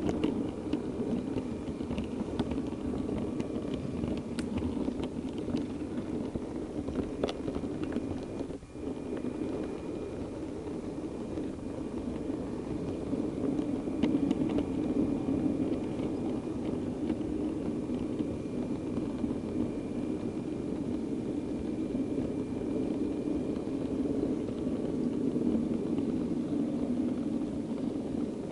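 Model railway diesel multiple unit running along the layout track, heard from on board: a steady rumble with occasional sharp clicks and a brief dip about nine seconds in.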